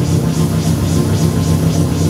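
Electronic music from a eurorack modular synthesizer played live with feedback: a dense low drone with a pulse of high hiss about four times a second over it.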